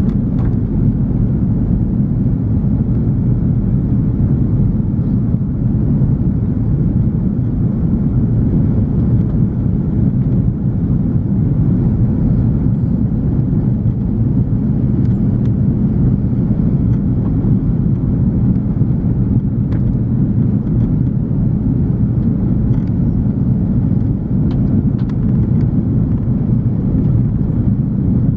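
Steady cabin rumble of an Airbus A340-300 in flight, heard from inside the cabin: its four CFM56 engines and the airflow over the fuselage, with a few faint ticks from the cabin.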